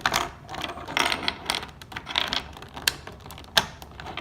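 Plastic Rubik's Cube pieces clicking and clacking as they are handled, in an irregular run of small clicks with one sharper click about three and a half seconds in.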